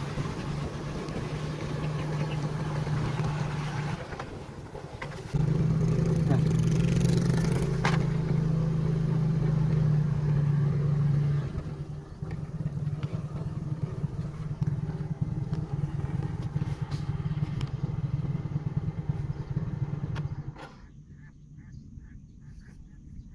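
Small motorcycle engine running steadily as the bike rides, louder for several seconds in the middle, then cut off a few seconds before the end. Faint, rapidly repeated chirping calls are left once it stops.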